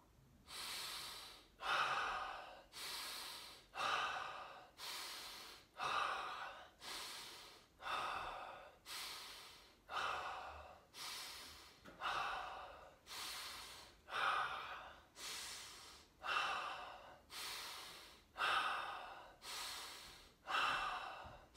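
A man doing rapid, deep, forceful breaths in and out in a steady rhythm of roughly one loud breath a second: the repeated power-breathing phase of a breathwork round that leads up to a breath hold.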